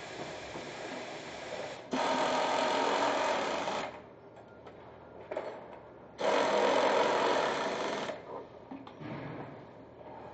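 Handheld pneumatic tool on an air hose running in two bursts of about two seconds each, driving fasteners into the spreader's handle frame, over steady factory background noise.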